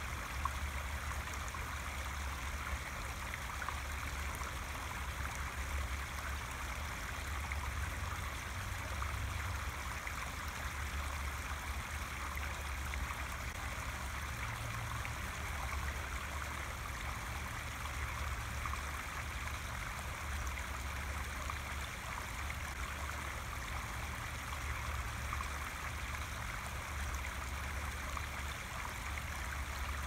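Shallow rocky stream running over stones in small cascades: a steady rushing and trickling of water with a low rumble under it.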